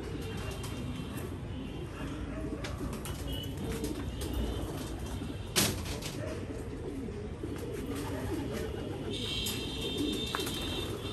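Many racing pigeons cooing together in a loft, a continuous overlapping murmur of coos. There is a sharp click about halfway through and some high chirping near the end.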